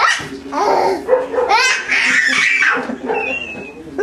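A toddler's high-pitched squeals and giggles as he plays with balloons, one sharp rising squeal about one and a half seconds in, and a short thin squeak near the end.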